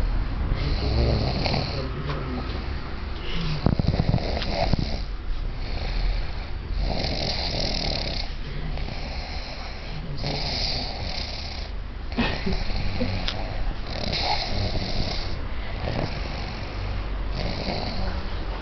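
Snoring: noisy rasping breaths repeating about every one to two seconds.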